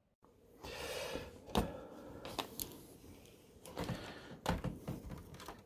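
Rustling handling noise with several sharp clicks and knocks scattered through it.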